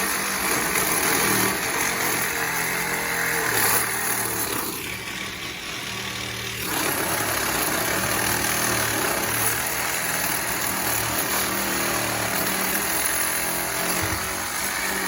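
A small motor running steadily with a high hiss over a low hum, easing briefly about five seconds in.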